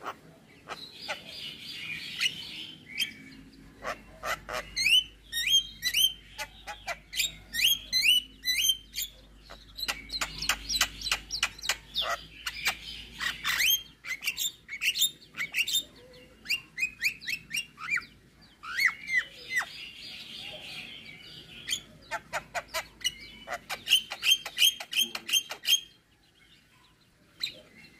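Javan myna singing a varied, busy song: rapid runs of sharp clicks and short whistled notes mixed with bursts of harsh chattering, with a short pause near the end.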